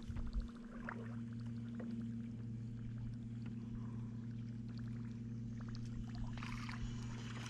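Baitcasting reel being cranked to retrieve a topwater lure across the water, with fine clicking, over a steady low hum.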